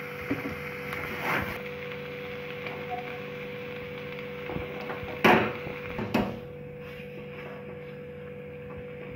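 Metal spatula scraping and knocking against a steel kadai as chicken liver, potato and tomato are stirred, a few separate strokes with the loudest about five seconds in, over a steady low hum.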